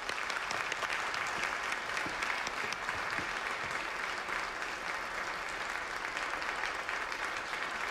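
A large seated audience applauding, a steady wash of many hands clapping.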